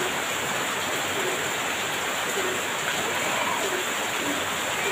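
Heavy rain pouring steadily, an even hiss of water.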